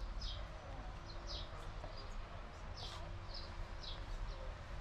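A small bird chirping over and over: short, high, falling chirps, about two a second, over a low rumble.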